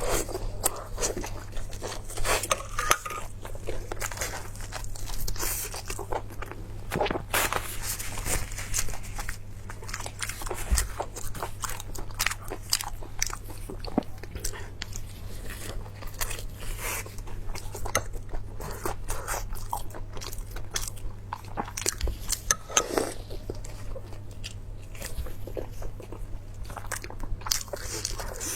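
A person eating close to the microphone: biting and chewing food, with a dense run of crunching and crackling clicks, over a steady low electrical hum.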